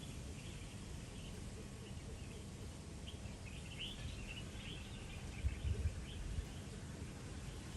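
Songbirds chirping and twittering faintly in short scattered bursts, busiest around the middle, over a steady low background rumble, with a few low bumps a little past halfway.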